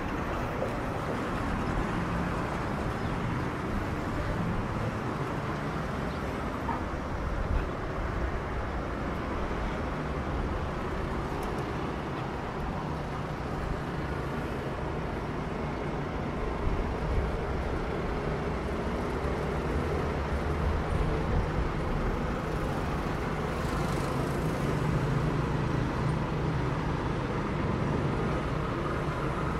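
Steady street traffic: passing cars and other road vehicles make a continuous rumble and hum, with a low engine drone swelling somewhat louder in the last third.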